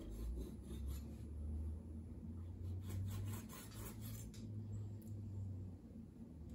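Chef's knife slicing fish fillets into bite-sized pieces on a wooden cutting board: a run of soft scraping strokes and taps of the blade on the board, busiest around the middle, over a steady low hum.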